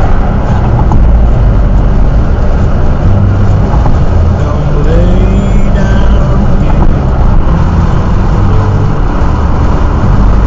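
Steady low road and engine rumble inside the cabin of a car cruising on a motorway at about 75 km/h.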